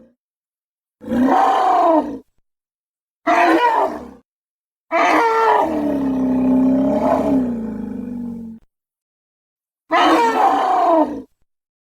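Rhabdodon dinosaur sound effect: four separate roaring calls with silence between them. The third is the longest, about three and a half seconds, its pitch dipping and then rising again.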